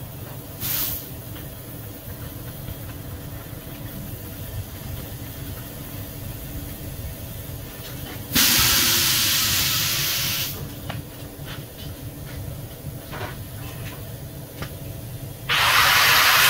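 Wire-feed welder arc sizzling steadily on the steel plate of a smoker cabinet, in two runs: one about two seconds long just past the middle, and another starting about a second before the end. Between them only a low steady hum and a few light ticks.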